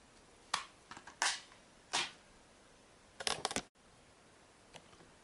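Handling of a plastic Blu-ray case: a few sharp clicks and taps about a second apart, then a quick cluster of clicks a little past three seconds in. Right after the cluster the sound cuts out for an instant, where the video is edited.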